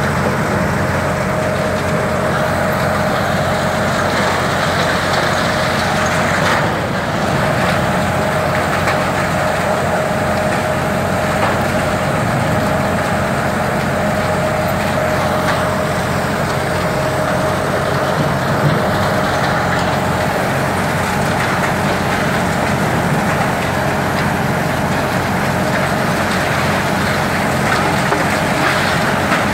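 Long-reach demolition excavator's diesel engine and hydraulics running steadily under load, with a steady whine on top.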